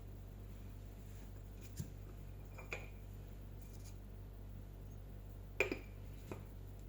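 A few sparse, sharp clinks and taps of kitchen utensils against dishes, the loudest a quick double clink about two-thirds of the way through, over a faint steady low hum.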